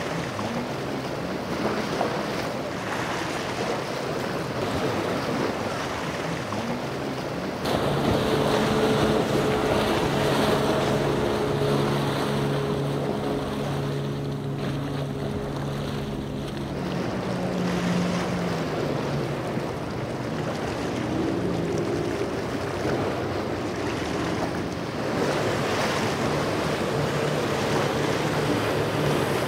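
Boat engines running as boats pass through the inlet, over a constant rush of breaking surf and wind buffeting the microphone. A steady multi-pitched engine drone holds through the middle, then dips, and a brief rising engine note comes later. The sound changes abruptly twice, as if cut between shots.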